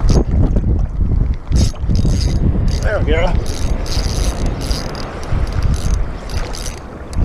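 Spinning reel cranked in quick spells, its gears and line roller whirring, as a jig is retrieved. There is a brief wavering squeak about three seconds in. Wind rumbles on the microphone underneath.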